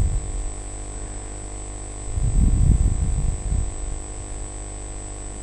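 Steady electrical mains hum with a thin high whine, picked up by the narration microphone, with a low muffled rumble for about a second and a half midway.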